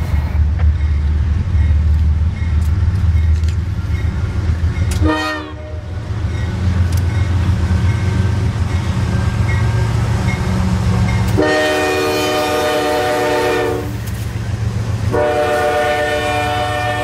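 CSX intermodal freight train's diesel locomotives rumbling past as the double-stack container cars roll by. The locomotive horn sounds two long multi-note chords, the first about eleven seconds in and the second near the end.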